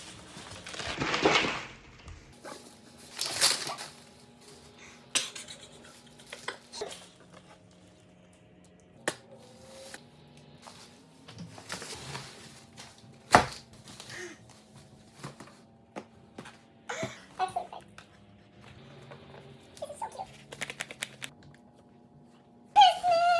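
Rustling, clicks and knocks of a gift being unwrapped and handled, with one sharp knock about halfway through. A short wavering cry starts just before the end.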